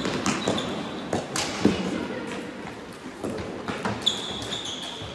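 Floorball play in a large sports hall: sharp, irregular clacks of sticks striking the plastic ball and each other, and knocks of the ball against the rink boards. About four seconds in, a high steady squeal lasts about a second.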